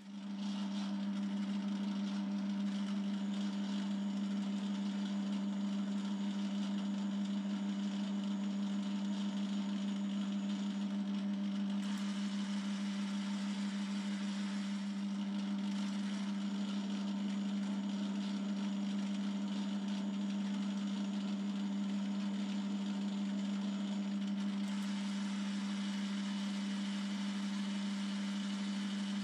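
BL250D benchtop metal lathe starting up and then running with a steady hum, its leadscrew driving the carriage through a single-point thread-cutting pass.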